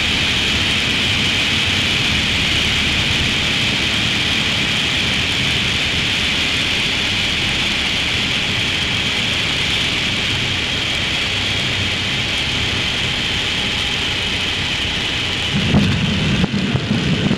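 Piper Cherokee cabin noise picked up inside a headset ear cup: the engine and propeller drone steadily under a hiss of airflow. Near the end an uneven, bumpy low rumble sets in, as the wheels touch down and roll on the grass runway.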